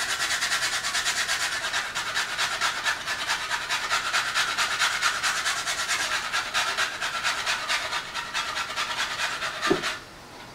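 Frozen ginger root being grated on a small metal hand grater: rapid, even rasping strokes that stop near the end.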